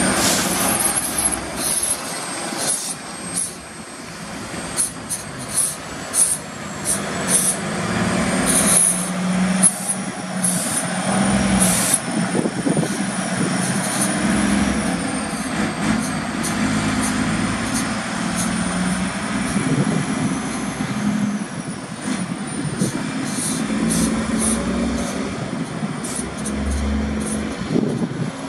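Heavy truck's diesel engine running as it pulls away and drives off, with repeated short hisses of air from its brakes.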